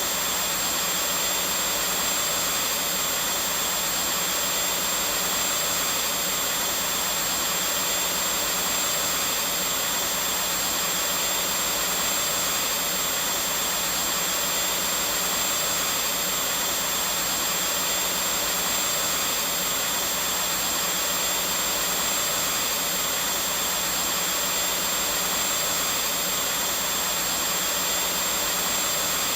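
Vacuum cleaner running steadily, an even hiss-like whoosh with a faint high whine, unchanging throughout.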